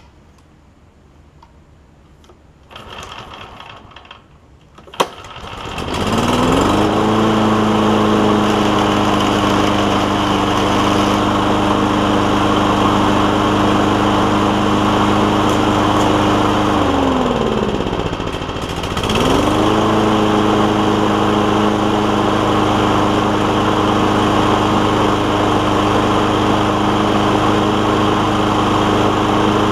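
Kawasaki single-cylinder engine on a Toro walk-behind mower starting about five seconds in, on its first run after a carburettor clean, then running steadily. Its speed sags to near stalling around eighteen seconds in and picks back up.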